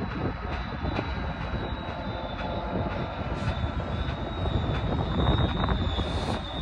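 Diesel locomotive of a Trinity Railway Express commuter train passing with its bilevel coaches: a steady engine drone and wheel rumble that grows louder about five seconds in, with a thin high tone over it.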